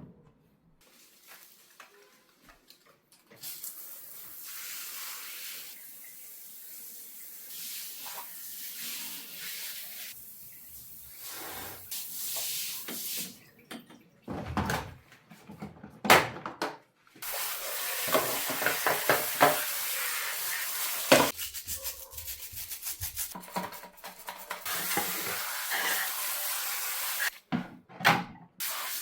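Household cleaning sounds: water running and hissing, with scrubbing and rubbing and scattered clicks and clinks of items being handled.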